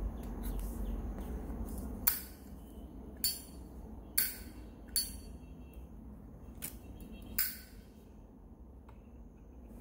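Metal clinks of Zippo lighters being handled: about six sharp clicks with a short ring, spread over a few seconds.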